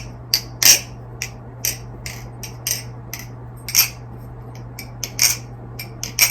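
NRB Vortex balisong with 6061 aluminum handles being flipped: irregular sharp metallic clicks and clacks, about fifteen, as the handles swing around the pivots and strike the tang pins and each other.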